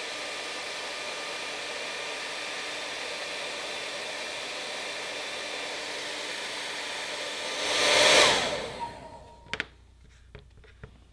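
Hand-held hair dryer running steadily, swelling louder about eight seconds in, then switched off, its motor whine falling away as it stops. A couple of knocks follow as it is set down on the table.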